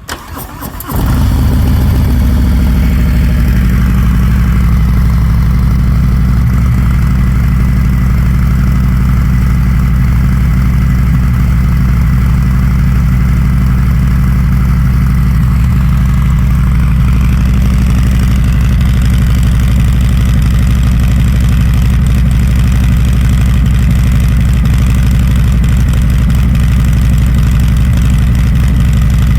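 Harley-Davidson Fat Bob's Milwaukee-Eight 114 V-twin exhaling through Jekyll & Hyde mufflers: it cranks and catches within about a second, then idles steadily.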